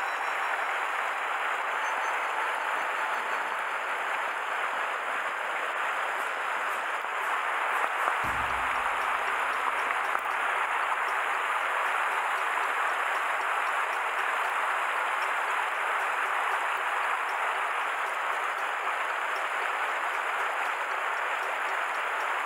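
Steady rush of river water, with a brief low thump about eight seconds in.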